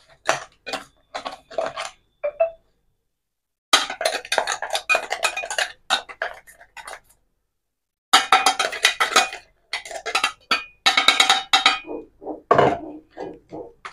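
Plastic sieve of ground roasted grain powder being tapped and shaken over a steel bowl, with a spoon scraping the powder through the mesh. It comes as quick runs of sharp taps, broken off twice.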